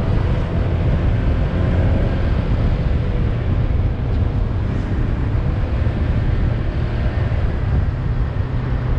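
Wind buffeting and motorcycle engine noise while riding at speed, picked up by a helmet-mounted GoPro Hero 7 fitted with a wind-slayer jacket. A heavy, fluttering low rumble dominates throughout, with a faint steady engine hum above it.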